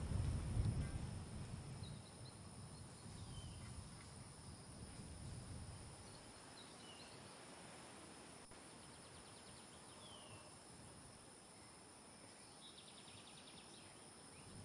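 Faint nature ambience of insects and crickets, with a few short falling bird chirps and a rapid insect trill near the end. A low rumble in the first two seconds is the loudest sound.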